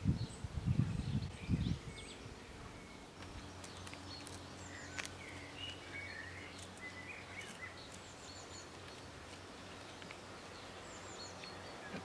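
Outdoor garden ambience: small birds chirping on and off over a steady low hum. A few louder low rumbles come in the first two seconds.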